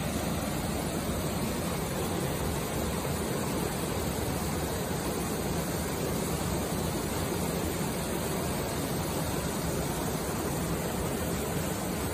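Whitewater of a small waterfall rushing steadily through a narrow rock channel.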